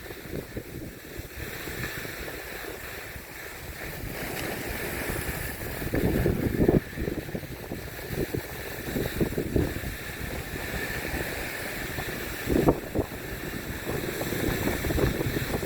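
Wind rushing and buffeting against the microphone while moving fast down a snowy ski slope, with a low rumble that swells louder about six seconds in and again about thirteen seconds in.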